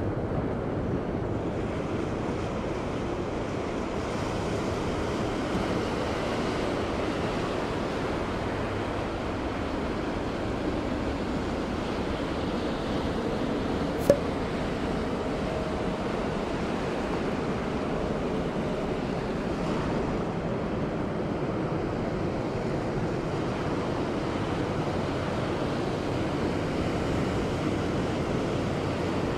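Surf washing up the beach at the waterline: a steady rush of breaking waves. One sharp click about halfway through.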